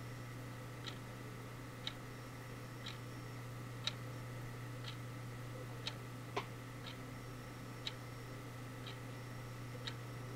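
A clock ticking evenly about once a second over a steady low hum, with one sharper click about six seconds in.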